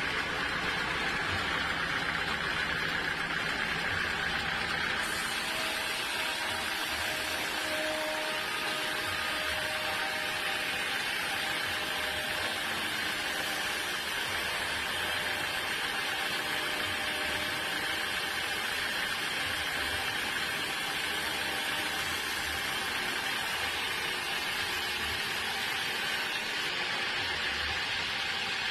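Sawmill machinery running steadily with an engine-like hum. A brighter hiss joins about five seconds in and drops away near the end.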